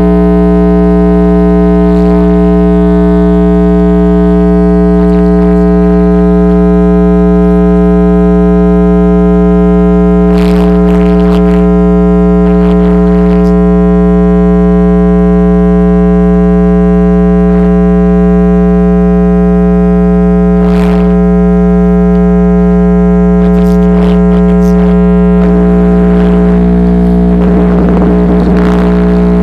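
Diamond D6 car subwoofer driven straight from 110-volt wall current, blaring a loud, steady mains hum with many overtones. It crackles now and then, and near the end the tone changes and turns rough and crackly as the overdriven sub starts to give out.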